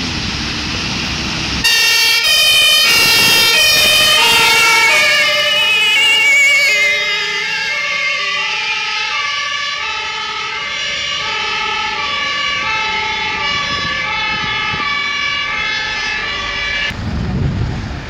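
Two-tone sirens (Martinshorn) of German fire engines passing close by. Several overlap loudly at first, then one keeps alternating high-low at a lower pitch and cuts off shortly before the end, with truck engine noise before and after.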